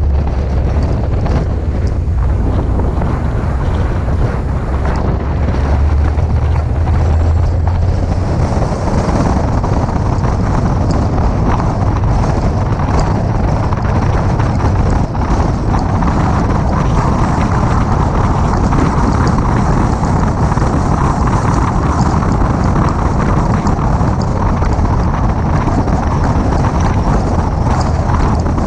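Steady wind rush over the bonnet-mounted camera's microphone as a 2006 Mini Cooper S drives at road speed, mixed with low engine and road rumble. The rumble is strongest for the first several seconds, then the rushing noise takes over.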